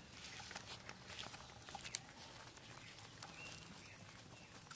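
Faint soft patting and rustling of live climbing perch flapping on bare dry dirt, with one sharp tap about two seconds in. A bird chirps briefly about three and a half seconds in.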